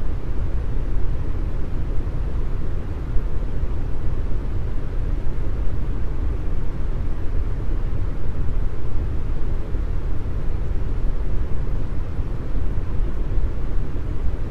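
Deep brown noise: a steady, unchanging noise weighted heavily toward the low end, with no pitch and little in the highs.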